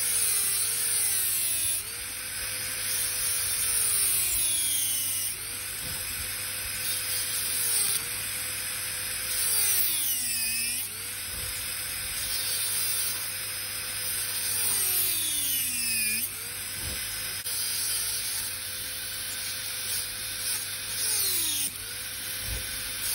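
High-speed dental handpiece whining as its bur cuts through the mesial contact of a lower first molar during crown preparation, over a steady airy hiss. The whine dips in pitch several times and climbs back.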